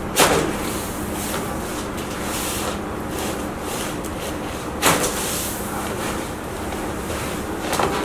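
Two sharp cracks of a chiropractic neck adjustment, the cervical joints popping, one just after the start and another about five seconds in, over steady room noise.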